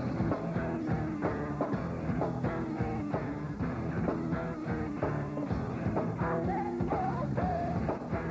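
Rock music with a steady drum beat and a voice singing.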